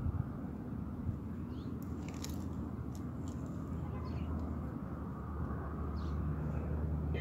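An empty metal wheelbarrow pushed over rough dirt, with a few sharp clicks and rattles about two to three seconds in. Short bird chirps come now and then over a low steady hum that grows a little louder in the second half.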